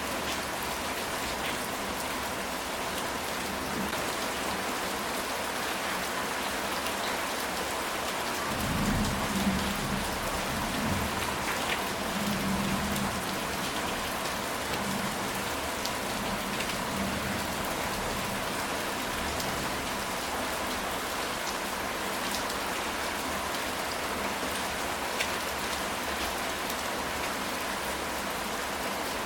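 Steady rain falling on a ceramic tile roof. A low rumble of thunder swells about nine seconds in and fades out over the next few seconds.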